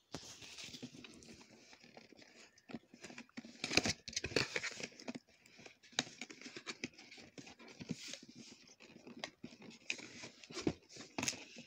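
Cardboard box being handled and opened by hand: irregular rustling, scraping and tearing of cardboard and tape, with louder bursts about four seconds in and again near the end.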